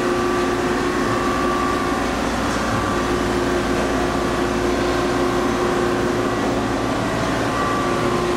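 Steady machine hum with a few held tones over a low drone, from the Cincinnati-Milacron 18C CNC turning center's support equipment running: its hydraulic power unit and electrical-cabinet air conditioner.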